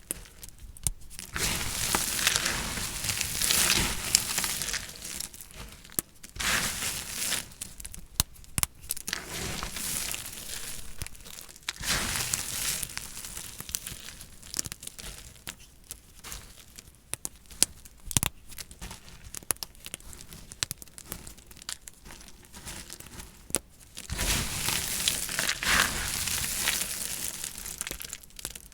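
A blade cutting through dry painted soap, with crisp crunching and crackling full of small sharp clicks. It comes in several louder passes with quieter stretches between them.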